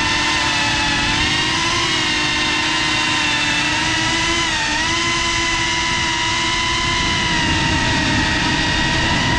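FPV quadcopter's brushless motors and propellers whining steadily, the pitch dipping briefly about halfway through as the throttle eases.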